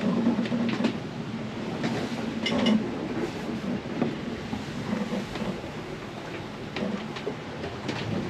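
Noise of a sailboat under way in rough seas: a steady low hum with rushing noise and scattered knocks and creaks.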